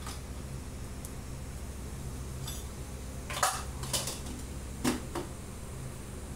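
A metal utensil clinking against an aluminium pressure cooker a few times while spices go into it, the loudest clinks about halfway through and again near three-quarters of the way, over a steady low hum.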